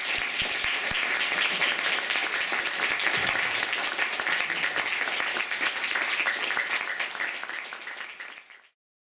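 Audience applauding steadily, then cutting off suddenly near the end.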